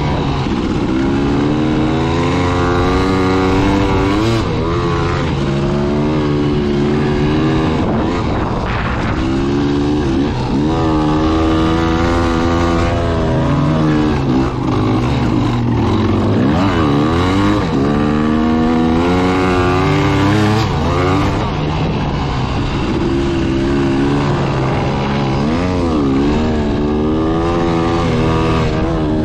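Dirt bike engine running under changing throttle, its pitch rising and falling every few seconds as it revs up and eases off.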